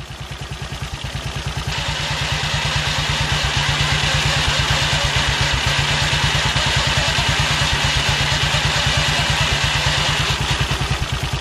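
Matchless G3L WD's single-cylinder engine running at a steady idle with an even beat, with a steady high-pitched noise over it from about two seconds in until near the end. This is the strange transmission noise from the Burman CP gearbox, which the owner traced to the main shaft bearing rotating in its housing.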